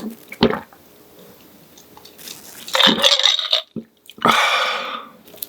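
Close-miked eating sounds: a short bite near the start, then chewing, and two louder noisy bursts about a second and a half apart near the end.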